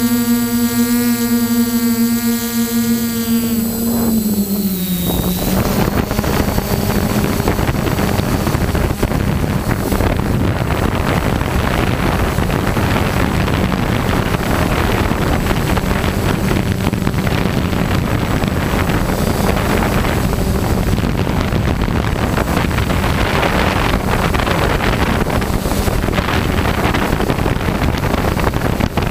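Quadcopter drone's E300 motors and propellers heard from the onboard camera: a steady high whine that drops in pitch about four seconds in. It then gives way to a steady rushing of propeller wash and wind on the microphone, with a faint motor hum underneath.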